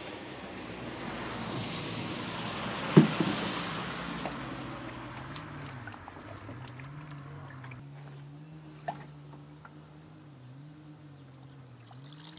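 Water poured from a watering can into the priming port of a Gardena garden pump, filling the pump housing so that it can prime. The pouring builds up, a sharp knock comes about three seconds in, and the pouring then trails off into trickles.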